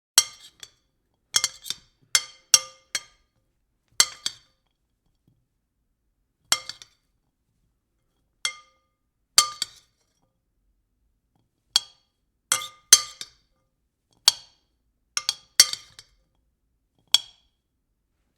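A spoon clinking against a bowl: about fifteen separate strikes at uneven intervals, some in quick pairs or threes, each leaving a brief ringing tone from the bowl.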